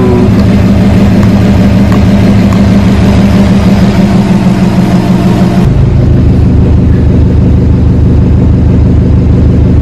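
A car engine idling, loud and close. A little over halfway through, the sound changes abruptly to a deeper tone.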